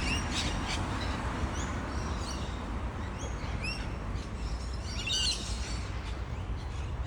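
Birds chirping: short upward-sliding calls scattered through, with a quick flurry of them about five seconds in, over a steady low rumble of outdoor background noise.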